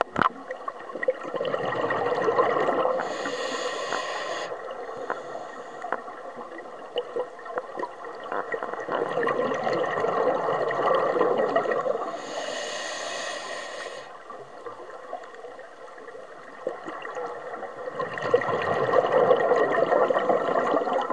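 Scuba breathing through a regulator underwater: long bubbling exhalations, each followed by a shorter hissing inhalation, in a slow cycle about every nine seconds.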